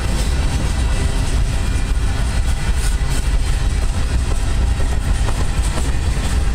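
Freight train's boxcars rolling past close by: a steady, even rumble of steel wheels on rail.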